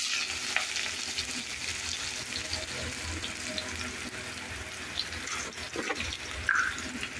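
Sliced onions sizzling in hot oil with whole spice seeds in a kadhai: a steady frying hiss, a little louder just as the last pieces drop in.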